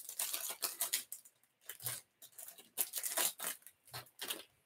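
Plastic wrapper of a trading-card pack being torn open and crinkled by hand, a run of short, irregular rips and rustles.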